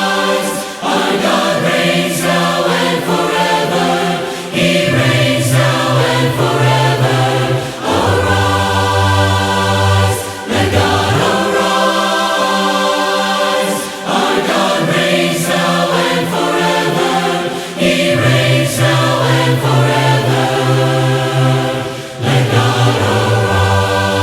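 A choir singing a sacred song in harmony, with several voice parts and sustained low notes that change at each phrase.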